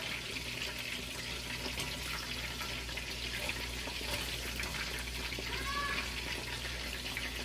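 Panko-coated chicken tenders frying in hot oil: a steady sizzle with fine crackling.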